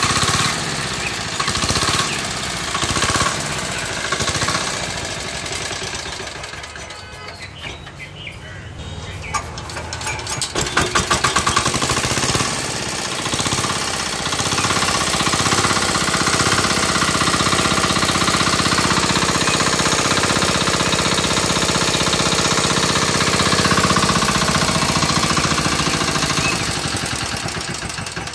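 Z170F single-cylinder diesel engine running with a rapid hard knock. It slows and quietens about six seconds in, picks up again a few seconds later, runs steadily, then dies away near the end.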